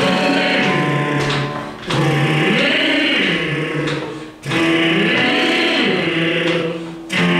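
A singer's voice running a vocal exercise over a backing track: three quick phrases of about two seconds each, the pitch climbing and falling back in each, with short breaths between and a fourth phrase starting near the end.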